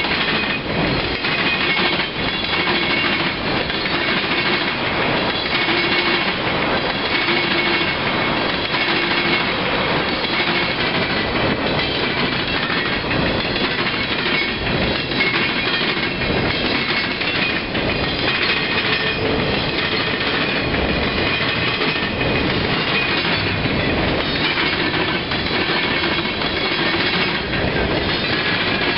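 Freight cars rolling past close by: steel wheels rumbling on the rails and clacking over rail joints in a steady, continuous run.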